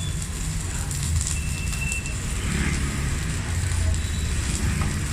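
Stick (arc) welding with a Megatec mini inverter welder: the arc crackles and sizzles steadily over a low, even hum.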